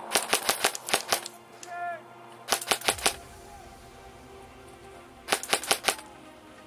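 Airsoft gun firing three short bursts of rapid shots: one early, one in the middle and one near the end.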